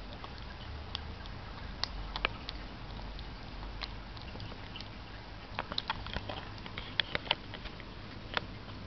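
A baby kitten clumsily lapping milk: irregular small wet clicks and smacks of its tongue and mouth, coming in a quick run in the second half.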